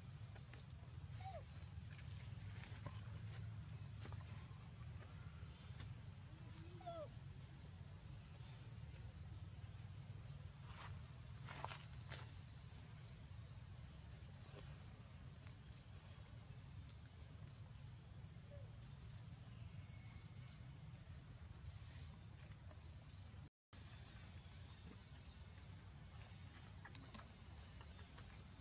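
Faint, steady high-pitched drone of insects chirring, over a low outdoor rumble, with a few faint short squeaks and light clicks; the sound cuts out for a moment about three-quarters of the way through.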